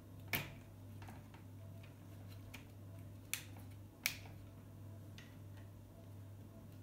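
Sharp plastic clicks and light taps from the plastic end fittings of an Aquael Leddy Tube RetroFit LED tube being adjusted and seated in a fluorescent-tube fixture. There are three distinct clicks, one just after the start and two close together near the middle, with fainter ticks between, over a faint low hum.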